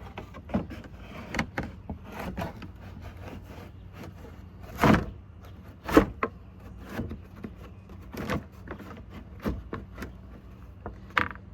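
Irregular clatters and knocks of a plastic engine under tray being handled and fitted beneath a car, with two louder knocks about five and six seconds in.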